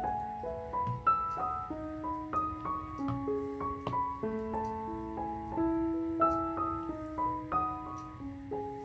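Background piano music: a gentle melody of held notes stepping up and down.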